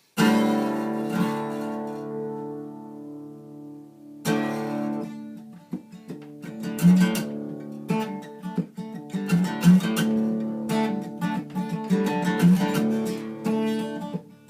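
Acoustic guitar blues intro: a strummed chord rings out and fades, then a second chord about four seconds in, followed by rhythmic picking and strumming.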